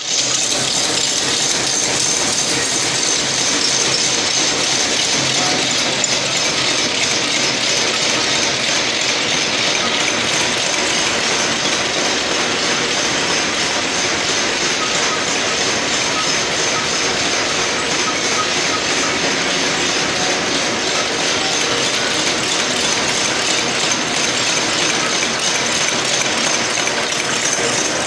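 Automatic barbed wire making machine running: a loud, steady, rapid mechanical clatter.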